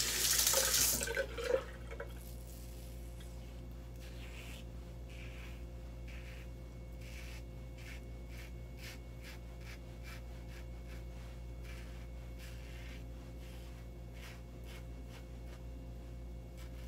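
Tap water running at the sink, cutting off about a second and a half in. Then a safety razor makes soft, scratchy, irregular strokes through lathered stubble, over a steady low hum.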